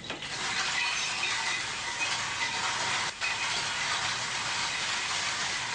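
A steady, dense hiss that starts abruptly, with faint high tones running through it and a brief drop about three seconds in.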